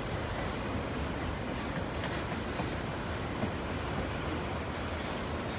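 Freight train of enclosed autorack cars rolling past: steady rumble of steel wheels on the rails, with two brief high-pitched hisses, about two seconds in and near the end.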